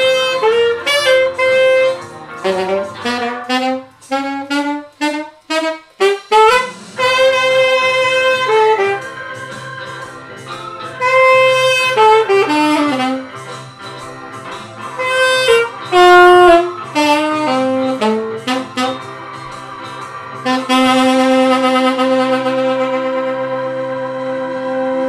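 Alto saxophone playing an upbeat rock-and-roll twist tune in short, choppy notes and quick runs up and down. It ends on a long held note over the last few seconds that slowly fades.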